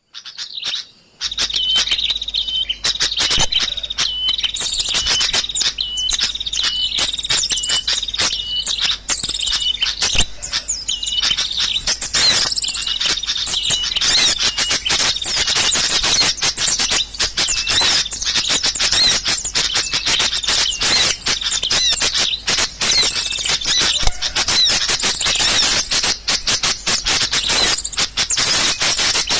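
Dense chatter of many small birds chirping and twittering over each other: a lure call (pikat) for small birds. One short call repeats about every half second through the first ten seconds.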